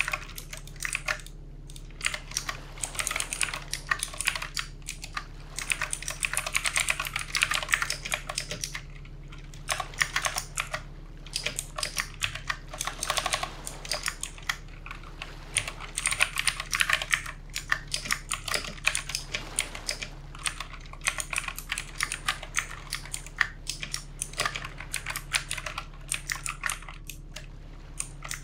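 Typing on a backlit mechanical computer keyboard: quick runs of key clicks broken by short pauses, over a faint steady low hum.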